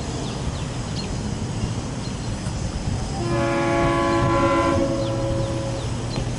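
Air horn of an approaching freight train led by a Santa Fe warbonnet GE C44-9W locomotive: one long chord blast starting about three seconds in, over the steady low rumble of the train.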